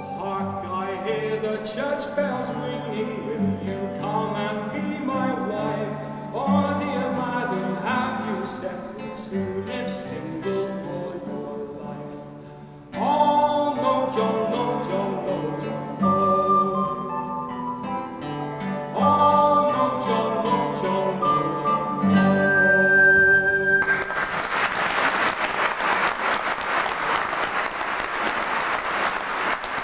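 A male singer with classical guitar and a woodwind accompaniment singing the closing phrases of a song, ending on a held high note. The audience then breaks into applause for the last several seconds.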